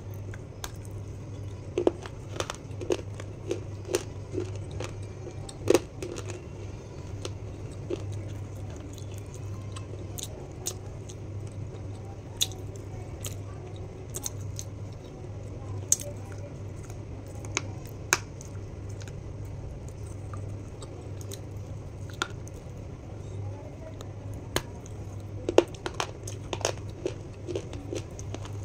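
Close-miked biting and crunching of crisp black chips. Sharp snapping bites come in clusters near the start and again near the end, with chewing in between.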